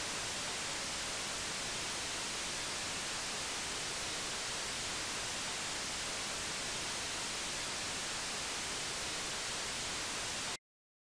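Steady television-style static hiss, even and unchanging, that cuts off suddenly near the end.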